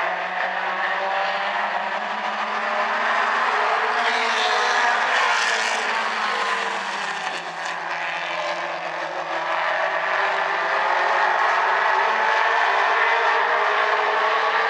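A pack of mini stock race cars running at racing speed on an oval track, several engines at high revs at once, their pitches shifting as the cars jostle and pass.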